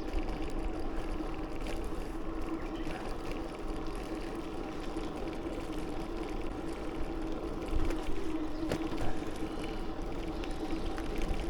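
Bicycle riding noise: wind rushing over the microphone and tyres rolling on pavement, with a steady hum and a few sharp clicks about three quarters of the way through.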